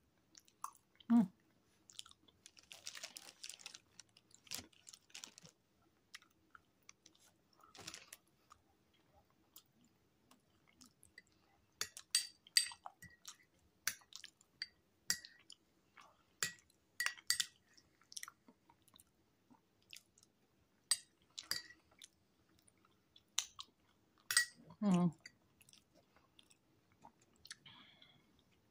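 Close-miked chewing of food, with wet mouth clicks and smacks at irregular intervals and a busier run of sharp clicks in the middle.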